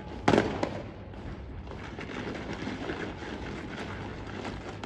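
Guardsmen's drill boots stamping down together on the parade ground, a single sharp crash about a third of a second in, followed by a patter of quick shuffling steps as the ranks dress by the right.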